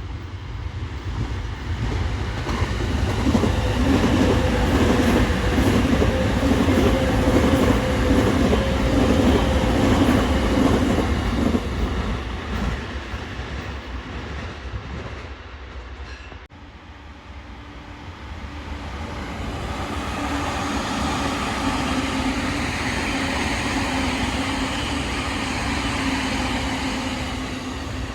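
Electric commuter trains passing on the line, wheels running over the rails with a steady motor hum. One pass swells and fades over the first half, and a second train's sound builds up again after a sudden break about halfway through.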